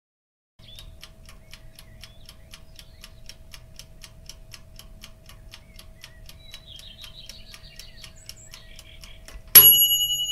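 End-screen sound effects: a steady fast ticking, about four ticks a second, with faint chirps. Near the end a single bright bell ding rings out and slowly fades.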